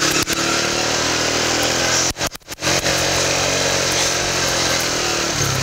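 Small motorcycle engine running steadily under way, with the sound cutting out briefly a little over two seconds in.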